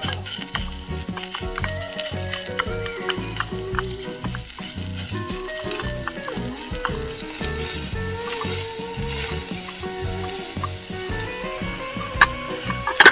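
Minced meat and chopped onion sizzling in oil in a tiny metal frying pan, with a small spoon and tweezers clicking and scraping against the pan as they stir. A couple of sharper taps come near the end.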